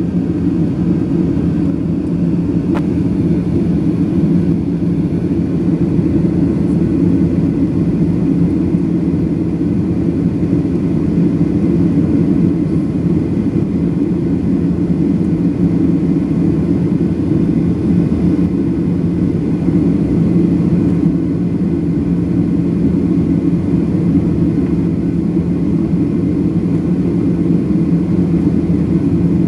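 Steady cabin drone inside a Boeing 737-800 airliner on approach with its flaps extended: the CFM56-7B turbofan engines and the airflow over the airframe make an even, low rumble that does not change.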